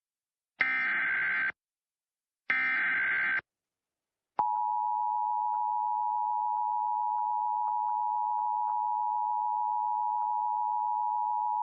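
Emergency Alert System broadcast tones. Two short bursts of SAME digital header data, each just under a second long with about a second of silence between them, are followed about a second later by the steady two-tone EAS attention signal (853 and 960 Hz), which starts abruptly and holds.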